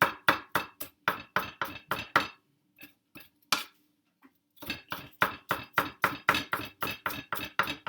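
Kitchen knife chopping on a cutting board in quick strokes, about four a second; the chopping stops for about two seconds with a single stroke in the gap, then starts again.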